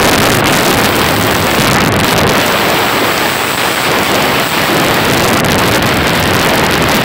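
Steady, loud rush of airflow inside a glider's cockpit in flight, with wind buffeting the microphone.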